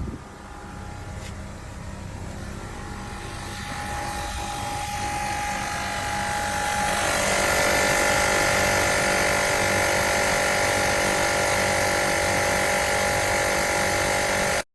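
Cordless portable tire inflator's small electric compressor running, growing louder over the first several seconds and settling into a steady, louder drone about seven seconds in, then stopping abruptly near the end.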